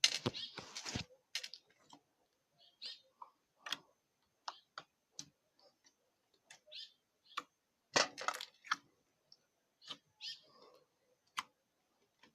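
Slime being squeezed and poked by hand, giving irregular sticky clicks and small pops with short pauses between them, and a denser cluster of squelches about eight seconds in.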